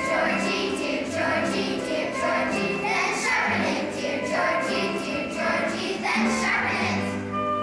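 Children's choir singing to a musical accompaniment with a steady beat.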